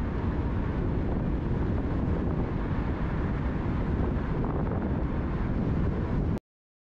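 Steady road and wind noise from a moving vehicle, heaviest in the low end, cutting off suddenly near the end.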